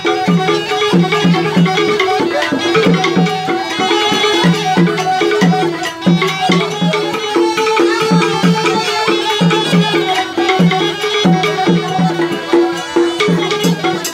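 Batak uning-uningan ensemble music: two bamboo flutes (sulim) playing a melody over a wooden xylophone (garantung) struck with mallets, with a low note pulsing in a steady rhythm underneath.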